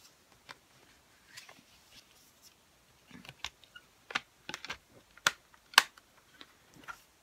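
Plastic CD jewel case being handled and pressed shut: a run of sharp plastic clicks and taps in the second half, the loudest just before the end, after some light handling noise.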